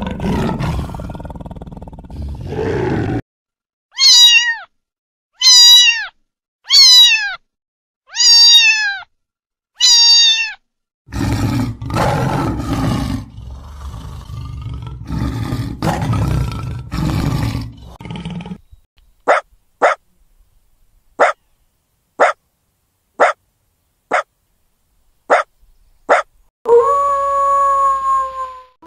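A run of different animal calls. A big cat's roar trails off, then five loud calls that fall in pitch, then a low, rough growling stretch, then about eight short sharp calls, and near the end a long, steady howl begins.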